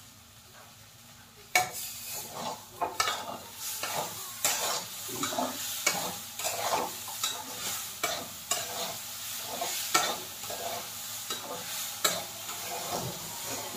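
Spatula stirring and scraping mung dal in a kadhai over a gas flame while the dal roasts: a quick, irregular run of scraping strokes that starts about a second and a half in.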